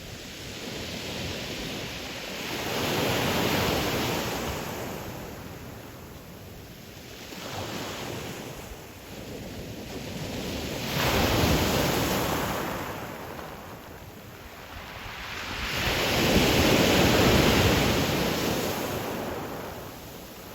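Ocean surf breaking on a pebble beach. Three waves swell and fade in turn, each lasting several seconds, about one every six to seven seconds.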